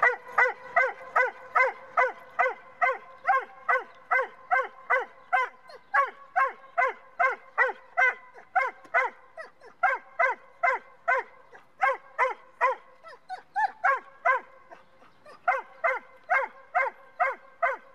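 German shorthaired pointer yelping over and over, about two or three short high-pitched yelps a second, thinning briefly about three-quarters of the way through. These are anxious distress yelps of a dog with severe separation anxiety, calling after its owner as they walk away.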